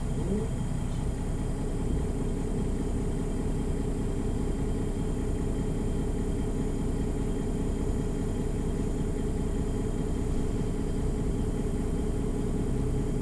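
MAN NG 313 articulated bus's six-cylinder diesel engine running steadily, a constant low drone with no change in revs.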